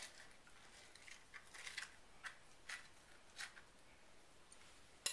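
Faint, short scrapes of a metal utensil scooping scored avocado cubes out of the skin, spaced irregularly, with a sharp click near the end.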